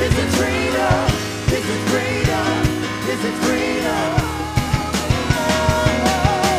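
Live church worship band: singers on microphones over a drum kit and accompanying instruments, with a long held sung note near the end.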